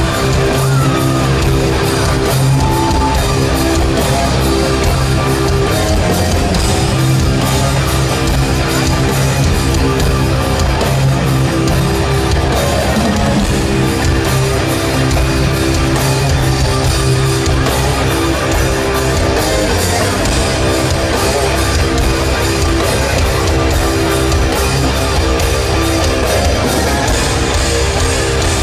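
Loud heavy rock music over a concert sound system, heard from the crowd: sustained, distorted chords held over a steady low rumble, the intro to a rock band's set.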